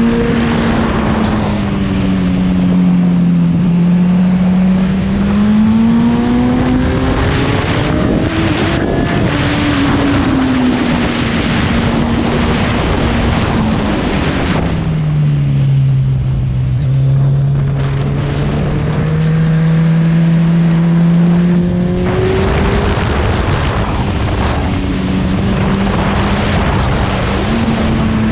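Kawasaki Z1000 inline-four with a full Arrow exhaust system, running on the move, its pitch rising and falling with the throttle. About halfway through the revs drop and the engine runs lower for several seconds before picking up again. Heavy wind rush runs over it.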